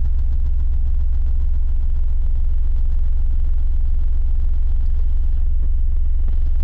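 MACH Audio subwoofers built for a Ford Mustang playing a steady, very deep bass test tone in the low twenties of hertz.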